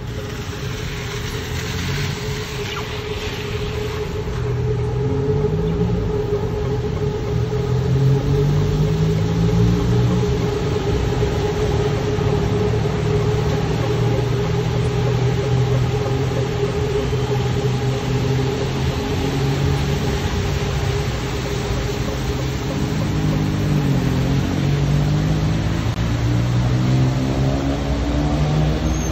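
Street traffic on wet roads: vehicle engines running under a steady hum, their notes rising and falling as vehicles pull away and accelerate, with the strongest rising engine notes near the end, over tyre hiss.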